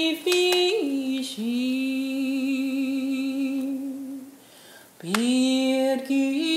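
A woman singing a Sicilian folk melody, apparently unaccompanied: a few short notes, then one long held note with vibrato. After a short breath about four and a half seconds in, she comes back with an upward slide into the next phrase.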